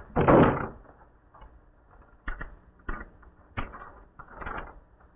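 A room door shuts with a short loud bang at the start, followed by several sharp clicks spaced over the next few seconds as its knob and lock are worked.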